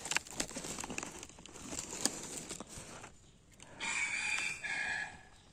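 Scattered crackling and rustling, then near the end a single short red junglefowl crow of about a second, in two parts, the second lower in pitch.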